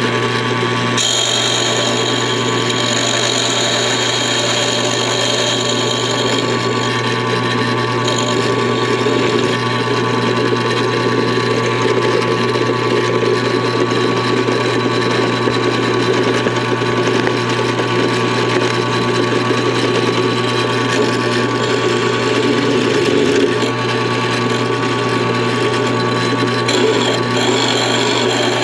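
Drill press motor running steadily while an end mill cuts into a diecast toy car's metal chassis. A high-pitched cutting squeal rides over the hum from about a second in to about six seconds, and again near the end.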